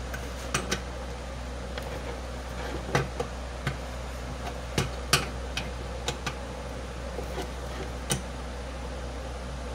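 Small metal wrench clicking and clinking against the bolts of a blower fan motor's mount as they are tightened by hand: a dozen or so irregular sharp clicks over a steady low hum.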